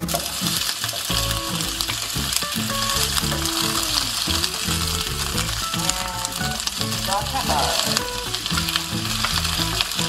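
Sliced onions frying in hot oil in a stainless steel sauté pan: a steady, loud sizzle that starts suddenly.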